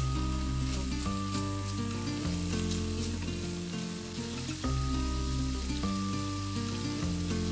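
Food sizzling and frying in a hot pan while being stirred, a steady crackling hiss, with background music playing over it.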